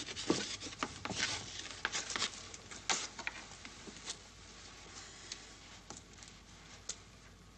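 Footsteps and shuffling of several people moving on a hard floor: a scatter of irregular scuffs and clicks that thins out after about four seconds.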